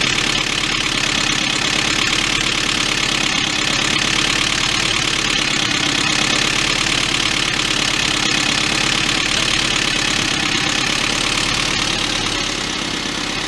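Honda CR-V's 2.0-litre four-cylinder engine idling steadily with a fast valvetrain rattle, the sign of valve lash set far too loose.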